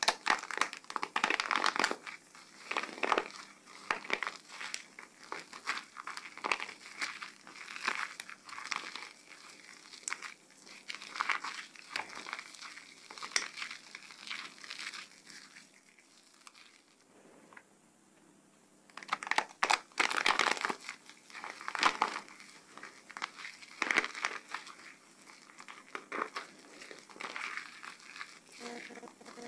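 Soaked glitter soap bar being crushed and squished into foam between bare hands, giving a dense run of small crackles. The crackles pause for about two seconds past the middle, then resume.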